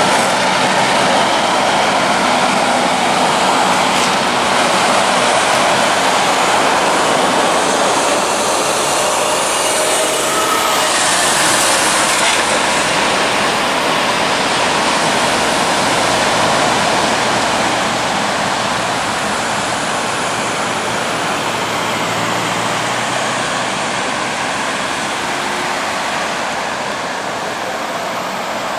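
Heavy trucks passing close by on a highway: a prime mover towing an oversize low-loader, then a refrigerated road train, a steady loud rush of diesel engine and tyre noise that eases slightly in the second half.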